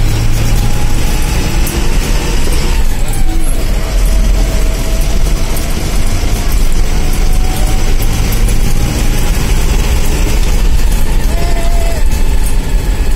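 Steady low rumble of a heavy vehicle's engine and road noise, heard from inside its cab while it drives along.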